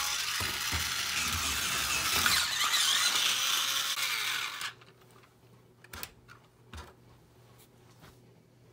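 Tamiya Lunchbox Jr's small battery-powered electric motor and gearbox whirring steadily with the wheels spinning freely, then cutting off suddenly a little past halfway. A couple of light clicks follow.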